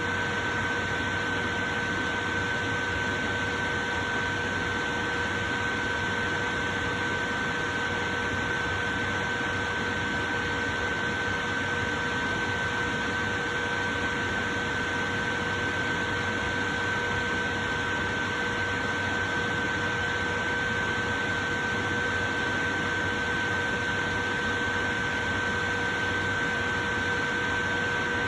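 Portable electric fan running steadily: an even whoosh of moving air with a constant high-pitched hum from the motor and blades over it.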